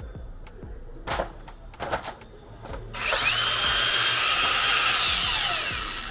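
A couple of short knocks, then a high-pitched power tool runs for about three seconds, its pitch rising as it spins up and falling as it winds down.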